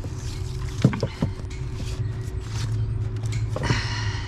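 A few sharp knocks about a second in as books and items are handled in a blessing box, over a steady low hum. Near the end comes a short burst of rustling noise.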